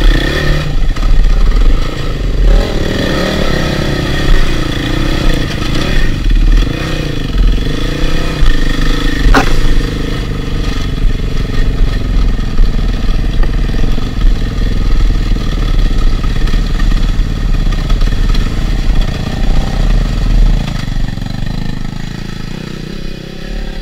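KTM 450 four-stroke single-cylinder dirt bike engine, heard from on the bike, revving up and down at low trail speed as it works through mud and swamp water. A single sharp knock cuts through about nine and a half seconds in.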